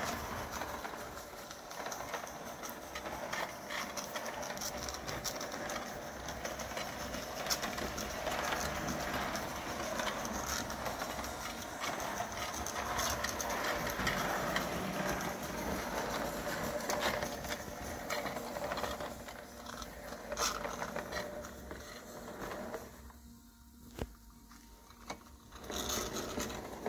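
A c.1912 Bing gauge 1 live steam locomotive running on tinplate track: a continuous mechanical clatter of wheels and motion with many small clicks. It drops away briefly about three quarters of the way through, then comes back.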